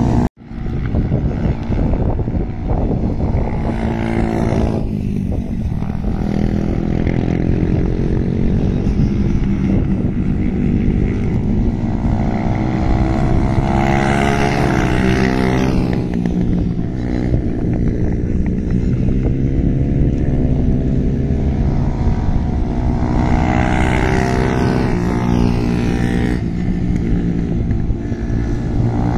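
Racing motorcycles, TVS Apache 200s, running on track, the engine pitch climbing and dropping again and again as the revs rise and fall through the gears. Louder, brighter stretches come about halfway and near the end.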